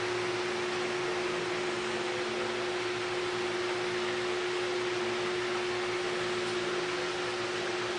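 Steady hiss with a constant mid-pitched hum, unchanging throughout: machine or fan-type background noise.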